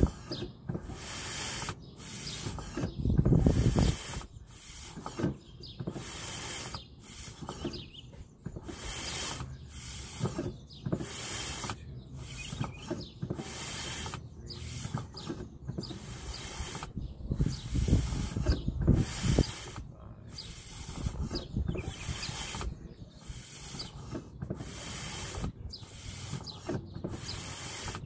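Brake master cylinder being bled: its piston is stroked about once a second, and each stroke brings a short hiss as air and brake fluid are forced through the bleed line. Now and then there is a louder dull knock.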